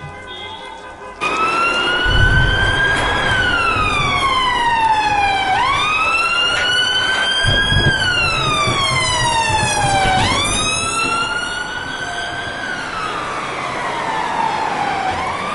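Emergency siren wailing, its pitch rising slowly and then falling in long sweeps of about five seconds each, three rises in all, over a steady hiss of rain. Low rumbles come in a couple of seconds in and again about halfway through.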